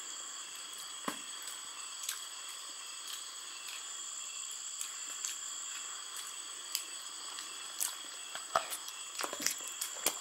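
Steady high-pitched chorus of night insects, several shrill tones held without a break, with scattered light clicks and taps of chopsticks against a small ceramic bowl.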